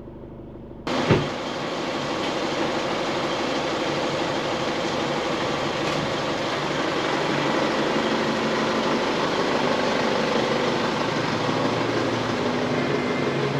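Isuzu D-Max ute's diesel engine. A quiet hum gives way about a second in to a sharp knock and then a loud, steady engine-and-tyre noise as the ute drives off.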